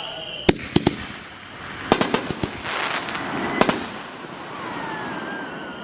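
5-inch aerial canister shells firing: a series of sharp bangs, three close together about half a second in, a cluster around two seconds and one more past three and a half seconds, with a short burst of crackling in between.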